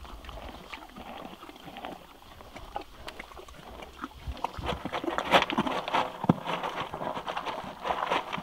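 A horse eating pelleted feed from a plastic tub: irregular crunching of the pellets as it chews and noses through them, with rustling against the tub. It grows louder and busier about four seconds in.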